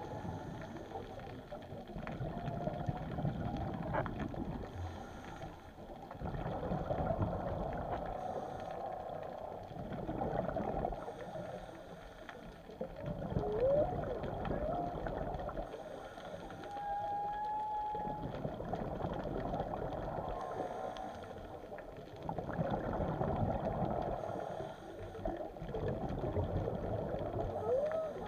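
Whale calls heard underwater: short moans that rise and fall in pitch, and one held higher note a little past halfway. Under them a scuba regulator hisses and exhaled bubbles rumble about every four seconds.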